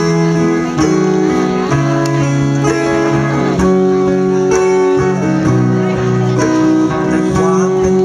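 Live band playing an instrumental passage of a song: held melody notes and chords change every half second or so over a steady bass line, with congas played in the ensemble.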